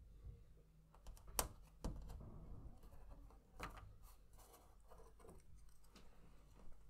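Clear plastic spirograph gear wheel and ring clicking and clattering as they are lifted off the paper and set down. There are several sharp clicks, the loudest about one and a half seconds in, with soft rustling between them.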